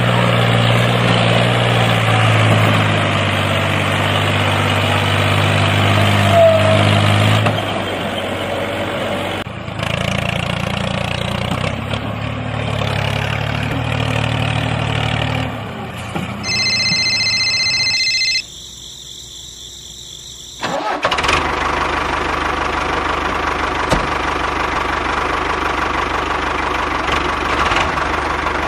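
Tractor engine running steadily at a low idle. About two-thirds of the way through, a few high steady tones sound briefly and the sound drops away for a couple of seconds, then the engine comes back running with a steady higher whine.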